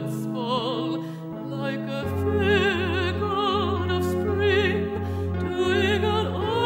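Chamber opera music in just intonation: sustained low chords from strings and synthesizers. A deeper bass note enters about two seconds in, and a line with wide vibrato sings above it.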